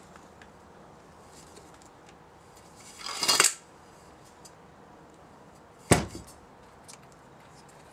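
Pleated paper filter element from a cut-open oil filter, with a metal end cap, being handled on a workbench. There is a brief rustling scrape about three seconds in and a single sharp knock about six seconds in.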